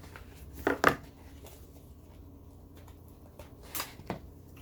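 Handling noises from a jewelry box and gold necklace: a few sharp clicks and taps, the loudest about a second in and two more near the end, over a faint steady hum.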